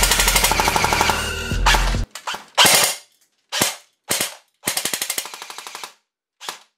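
Airsoft AK-style rifle firing at a paper target: a rapid burst over music that cuts off about two seconds in, then single shots and short bursts with gaps between, including a fast burst of about a dozen shots a second near the end.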